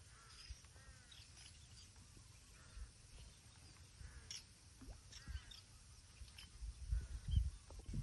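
Birds calling in the countryside: scattered short, high chirps and calls every second or so. A low rumble under them grows louder near the end.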